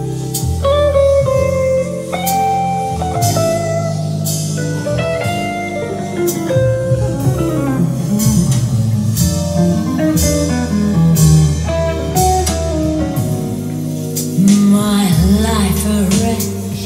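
Blues music with guitar, played back through Tannoy Eclipse bookshelf loudspeakers driven by an Onkyo Integra A-9711 amplifier and heard in the room.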